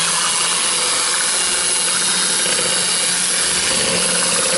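Electric hand mixer switched on right at the start and running at one steady speed, its motor humming and its wire beaters whisking a runny filling of cream, crème fraîche, eggs and lemon juice in a plastic bowl.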